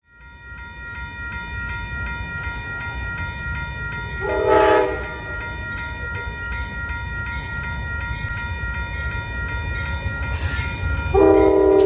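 Amtrak GE Genesis diesel locomotive approaching with its engine rumbling. It sounds a short horn blast about four and a half seconds in and starts a longer horn blast near the end.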